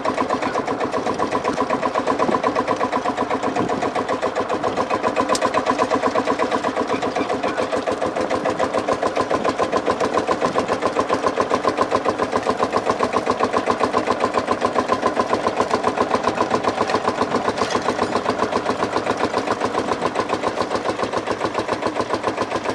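Vintage tractor engine running steadily close by, with a rapid, even beat.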